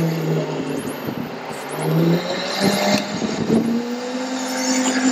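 A steady mechanical hum from the ETI bucket truck's power system as its start/stop–DC pump and 2-speed toggles are worked. It comes on twice briefly, then a higher tone starts about two and a half seconds in, steps up in pitch and holds steady.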